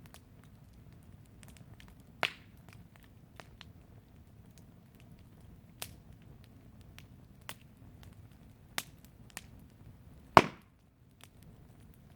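Wood fire crackling: scattered small sharp cracks, with two louder pops about two seconds in and about ten seconds in, the second the loudest.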